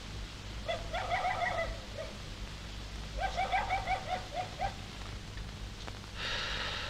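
Stifled high-pitched giggling in two bursts of quick, repeated notes, from men laughing behind their hands. A short hiss comes near the end.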